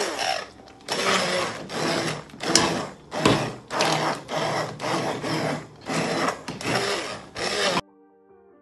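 Immersion blender pulsed in a pot of thick callaloo, about a dozen short bursts roughly two a second, its blades churning the cooked spinach and vegetables. The blending cuts off suddenly near the end, leaving faint guitar music.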